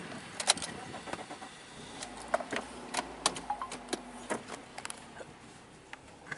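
A car heard from inside its cabin, pulling away and rolling across a railroad crossing: a low engine hum with irregular sharp clicks and knocks.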